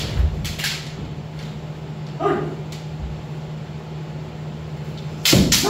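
Kendo practice: sharp clacks of bamboo shinai strikes and stamping feet on a wooden floor, with a short kiai shout a little after two seconds in and a loud strike with a stamp near the end. A steady low hum runs underneath.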